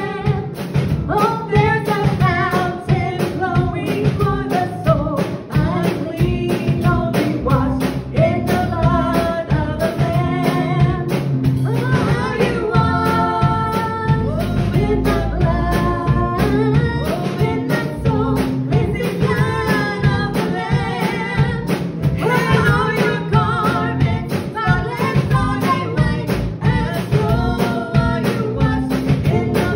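Two women singing a worship song together into microphones, over instrumental backing with a steady beat.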